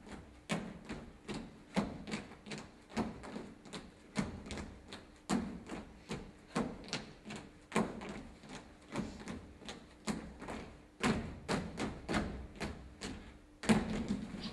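An irregular run of sharp knocks and thuds, several a second, over a faint steady hum.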